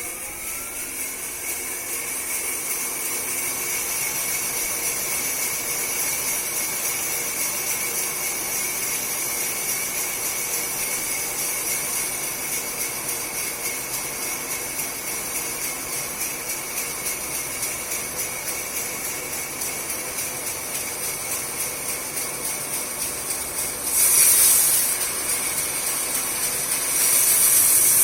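Sawmill saw running steadily at speed with a high whine and hiss. A louder, hissier cutting sound comes in about 24 seconds in and again near the end.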